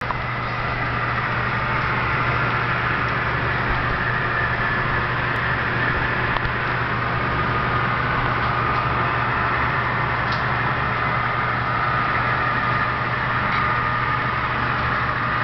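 HO-scale model diesel locomotives, a pair of CN Alcos, running along the layout's track with a steady mechanical hum and a few faint clicks.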